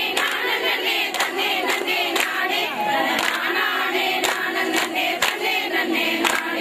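Many voices singing together, joined by sharp rhythmic beats that fall in pairs about once a second.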